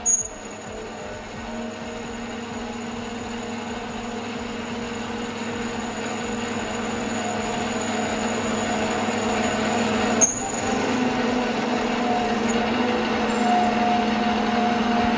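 Mini metal lathe running under a cut: a steady motor and gear whine with cutting noise, slowly growing louder, and a short click about ten seconds in.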